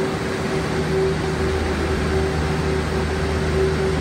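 A steady low mechanical hum with a few constant tones, over an even hiss of noise.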